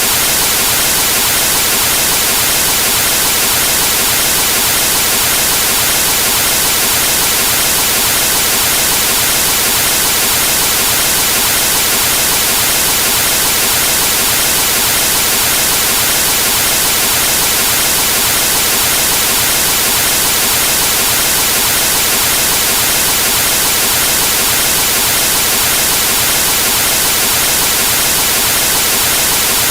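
Television static: the steady hiss of an untuned TV with no signal, even and unbroken, strongest in the highs.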